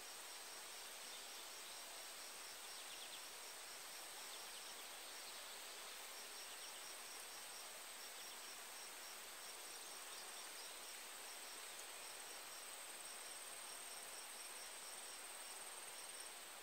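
Crickets chirping faintly, a regular train of high chirps about three a second with a couple of short pauses, over a continuous higher trill and a soft hiss of background noise. The sound fades out at the very end.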